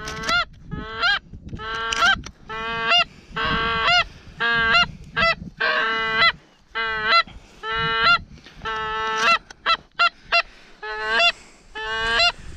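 Canada goose call being blown: a steady run of honks, each note breaking upward at its end, with a quick burst of short clucks about three-quarters of the way through.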